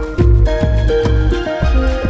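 Background music with a steady beat: regular drum hits over a deep bass line and a repeating run of held melodic notes.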